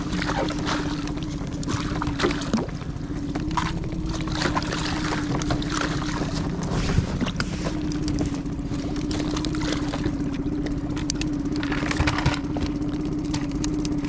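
Fishing boat's engine running steadily with a constant low hum, with scattered small knocks and splashes of water against the boat.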